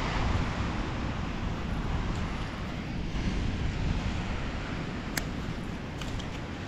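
Wind buffeting the microphone over a steady wash of ocean surf on a sandy beach, with one sharp click about five seconds in.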